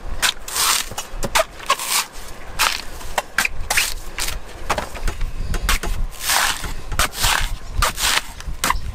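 A knife hacking and shaving a coconut's husk: a run of irregular sharp chops, with a few longer scraping slices near the start and again between about six and eight and a half seconds in.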